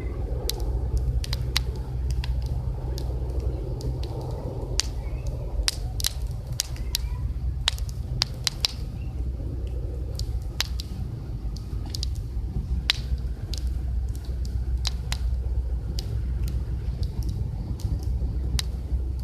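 Wood campfire crackling, with sharp irregular pops, over a steady low rumble.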